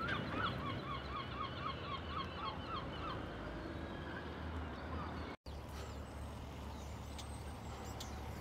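A gull calling: a quick run of about a dozen short yelping notes over the first three seconds, over steady low background noise. The sound drops out for an instant about five seconds in, and after that only the background remains.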